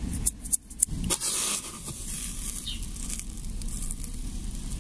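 Hand scooping granular potassium nitrate in a plastic bowl: a few sharp clicks, then a short gritty hiss of sliding crystals about a second in, over a steady low rumble.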